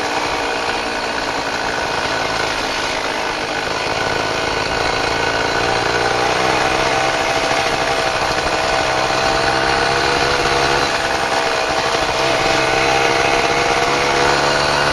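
Tomos Bullet moped's small two-stroke engine running steadily at a slow cruise, growing a little louder about five seconds in.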